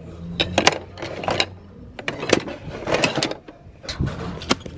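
Wooden and metal kitchen utensils knocking and clattering against each other as they are handled in a cardboard box, a series of sharp clacks. Near the end, the pages of a paperback book being leafed through.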